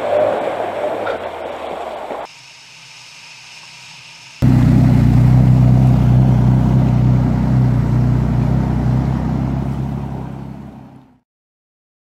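A 4x4 wading through a shallow river ford: its engine running with a steady low hum while water surges and splashes around it, cutting in suddenly and fading out near the end. Before that, engine and road noise from aboard a 4x4, then a short quieter stretch.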